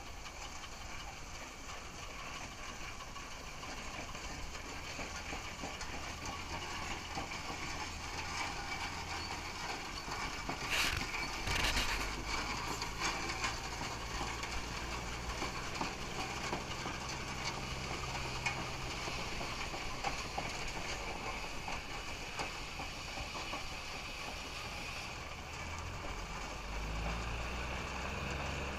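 Russell steam traction engine running as it drives past, loudest about eleven seconds in when it is closest.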